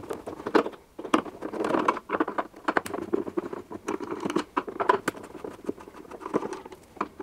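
A screwdriver undoing Torx 20 screws from a washing machine's plastic control panel: irregular small clicks and scrapes, several a second.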